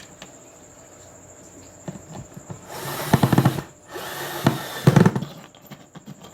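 Power drill or electric screwdriver driving screws into the speaker box, in two bursts of about a second each near the middle, with a few small knocks before them.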